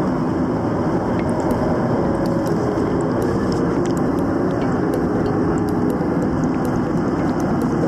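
Steady low cabin noise of a Boeing 737-800 in cruise: the rush of its CFM56-7B turbofans and airflow over the fuselage, even throughout, with a few faint ticks above it.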